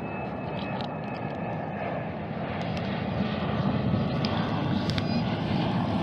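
A steady low rumble that slowly grows louder, with a few light clicks as snail shells are set down on a wire grill.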